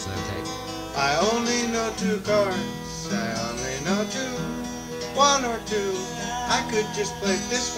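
Country-style song: strummed acoustic guitar with a sung melody over it.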